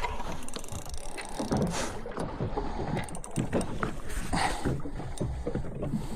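Water slapping and sloshing against the hull of a small fishing boat, with irregular knocks and two brief splashes about two and four seconds in.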